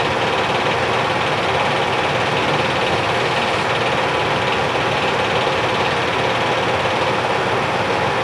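Film projector running, a steady mechanical whirring clatter.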